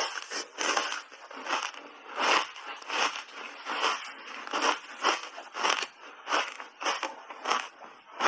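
Ice bar coated in matcha powder being chewed, close to a lapel microphone, in sharp crunches about twice a second.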